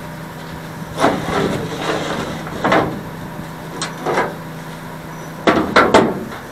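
Scattered knocks and clatters of wooden cabinet parts and tools being handled, several in quick succession near the end, over a steady low hum.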